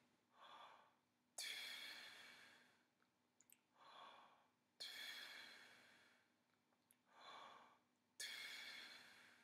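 Faint breathing: three cycles of a soft inhale on an open 'ah', each followed by a tongued 'too' exhale that starts sharply and fades over about a second and a half. It is a trumpet beginner's airstream exercise, blowing a straight stream of air onto a hand held in front of the lips.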